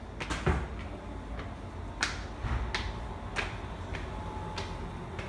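Footsteps on a hard floor: sharp clicks and taps at an uneven walking pace, about one or two a second, over a low rumble.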